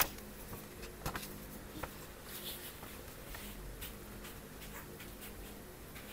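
A page of a small hardcover book is turned, with a sharp paper flap at the start. Soft paper rustles and light taps follow as the tabbed new spread is pressed flat.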